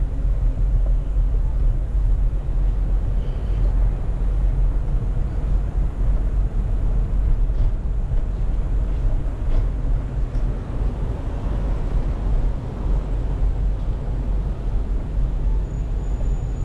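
Steady wind noise on the microphone from riding a bicycle, a low rumble with road noise underneath.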